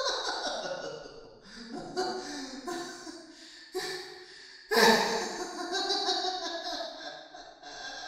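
Creepy clown laughter performed as a horror sound effect: a few short laughs, then a louder burst about halfway through, each fading away with a heavy echo.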